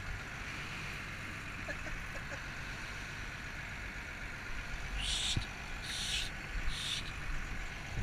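Fishing boat's engine running steadily under way, heard from inside the wheelhouse as a low rumble with hull and water noise. About five seconds in come three short hisses, a little under a second apart.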